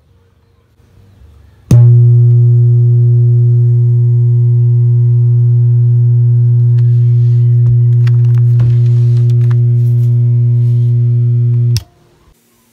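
Loud, steady low mains hum with a buzzy row of overtones from the speaker of a Kevler KR-310A amplifier system; this hum is the fault being repaired. It starts abruptly about two seconds in and cuts off suddenly near the end.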